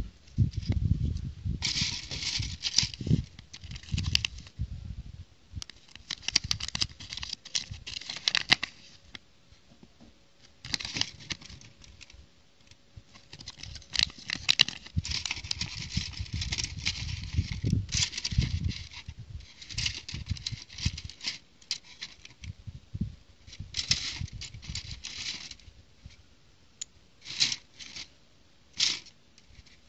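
Hands handling a toy brick set's packaging: crinkling and rustling of plastic and a paper instruction sheet in irregular bursts, with sharp clicks of small plastic bricks and the plastic capsule. Low rumbles of handling come and go.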